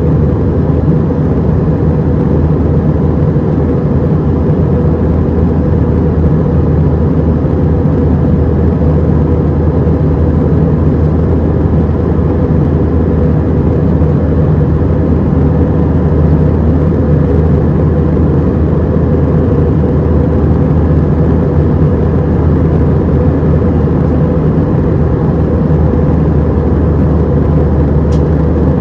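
Steady cabin drone of an Airbus A319-100 in flight, heard from inside the cabin: engine and airflow noise, deep and unchanging.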